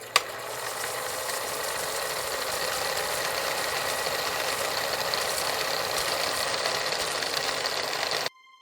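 A machine running steadily, an even hissing noise with little bass, after one sharp click at the very start; it stops abruptly near the end.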